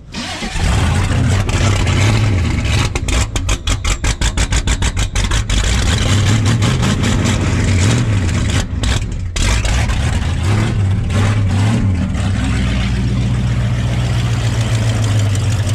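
1976 GMC 3/4-ton's carbureted 454 big-block V8 catching on a cold start and running rough and uneven, with choppy stumbling and a couple of sharp dips about nine seconds in. Near the end it settles into a steadier but poor idle. It is cold at minus 10 with a choke that doesn't work.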